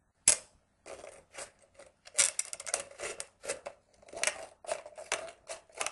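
Scissors cutting around a thin plastic 2-liter soda bottle: a sharp snap just after the start, then a run of irregular snips, about two to three a second.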